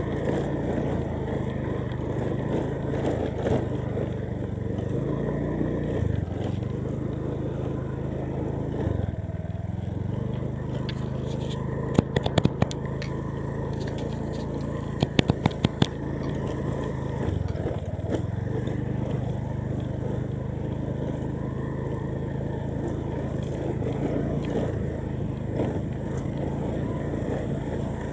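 Motorcycle engine running at low speed on a rough dirt track, its pitch stepping up and down a few times as the throttle changes. Two quick clusters of sharp clicks or knocks come about halfway through.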